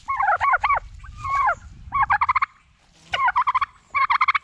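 Several tom turkeys gobbling in quick succession, about five gobbles overlapping and answering one another, each a fast rattling burst.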